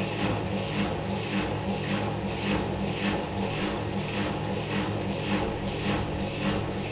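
Hoover Performa washing machine on its spin cycle: a steady motor hum under a swishing that repeats about twice a second.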